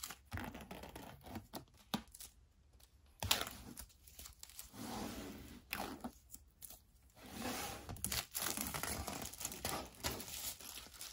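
Clear plastic shrink-wrap being torn open and peeled off a box, crinkling in irregular bursts with sharp clicks.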